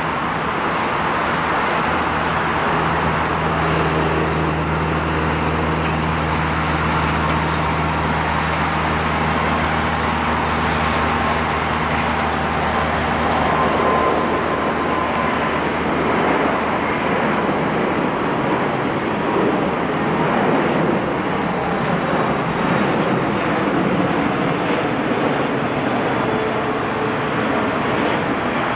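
Airbus A380's four jet engines at takeoff thrust as the airliner lifts off and climbs away: a loud, steady rumble. A low hum under it fades out about halfway through.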